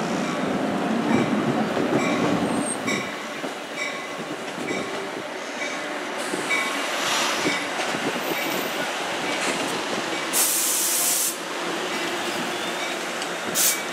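NJ Transit Comet V passenger coaches rolling past the platform, their wheels clicking over the rails. A loud hiss lasting about a second comes about ten seconds in.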